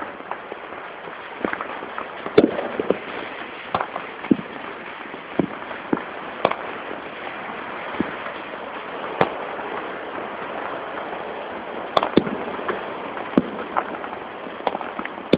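Many fireworks and firecrackers going off at once: irregular sharp bangs and pops, the loudest about two seconds in and again near twelve seconds, over a steady background din of many more.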